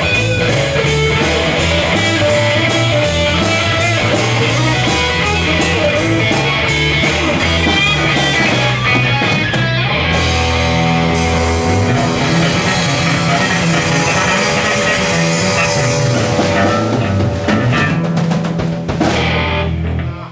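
Live rock band of electric guitars and a drum kit playing a song to its close. A steady drumbeat runs at first. From about ten seconds in, crashing cymbals wash over held chords, and the band stops just before the end.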